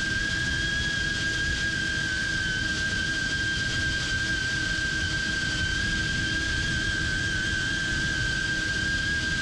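FPV quadcopter's brushless motors and propellers whining at a nearly constant pitch under steady cruising throttle, over a constant low rushing noise.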